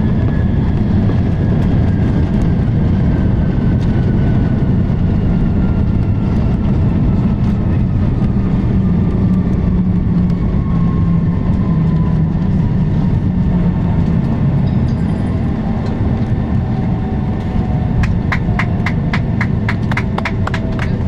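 Boeing 757-200 landing rollout heard from the cabin: a loud steady rumble of the wheels on the runway and the rushing air, with the engines' whine falling slowly in pitch as the jet slows down. Near the end a quick run of regular clicks sets in, about three a second.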